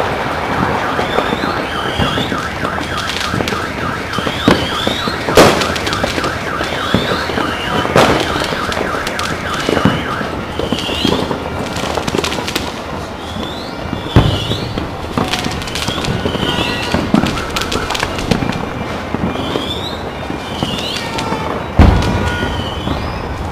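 New Year's Eve fireworks and firecrackers going off across a city: steady crackling and popping with several louder booms, the loudest near the end. Over it, a warbling electronic alarm tone repeats about once a second, and a rapid pulsing tone runs through the first half.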